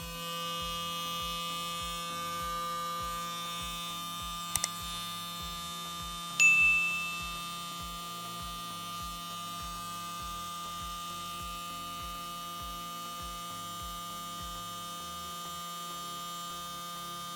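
Small 775 DC motor of a homemade 12 V drill spinning up and then running at a steady speed with an even whine. There are two light clicks about four and a half seconds in, and a sharper click with a brief high ping a couple of seconds later.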